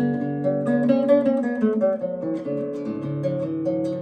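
Acoustic guitar played fingerstyle: single notes plucked one after another over ringing bass notes, an arpeggio pattern picked with the fingers.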